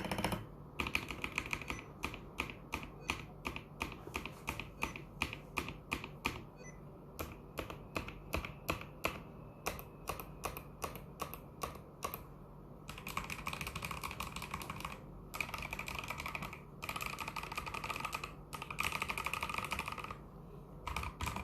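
Typing on a fully modded Vortexseries VX64 Lite mechanical keyboard with Gateron Yellow linear switches and XDA keycaps: a fast patter of keystrokes, running together into unbroken stretches of rapid clatter in the second half.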